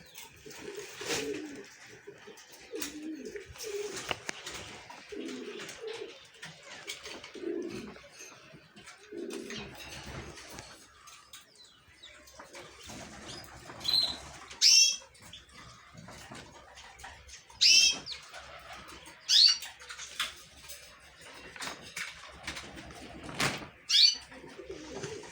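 Doves cooing repeatedly in low rolling phrases for the first ten seconds or so. Over the second half come about six loud, sharp high chirps from small cage birds, with faint twittering throughout.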